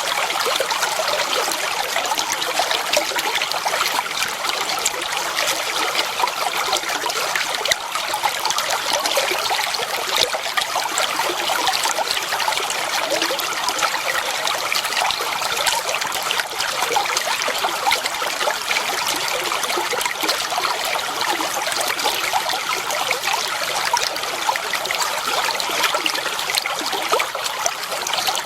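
Clear water flowing and trickling steadily, a constant babbling splash with no pauses.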